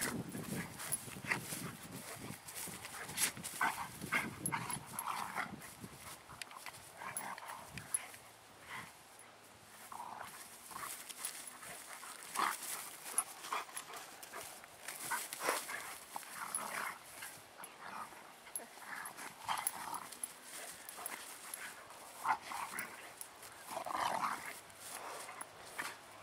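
Two young dogs play-fighting, giving short, scattered vocalizations every second or two.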